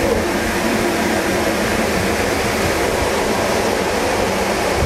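Cleanroom air shower running: a steady, loud rush of air jets from the nozzles in the chamber walls, blowing dust off clothing before entry to the cleanroom.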